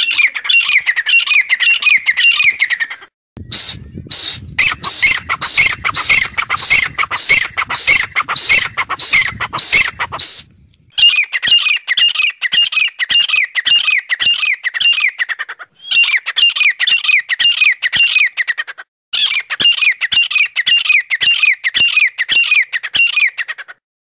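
Grey francolin (teetar) calls played as a lure: high, rapid runs of repeated ringing notes, in stretches of several seconds separated by abrupt short breaks. From about 3 to 10 seconds in, a low rumble lies under the calls.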